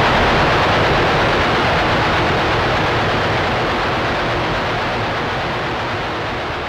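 A dense, rumbling, rushing noise drone with no clear pitch, fading slowly, as ambient sound in a black metal recording.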